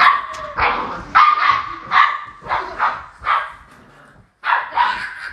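Standard poodle puppies barking: a quick series of short barks, about eight in all, with a brief pause a little before the end.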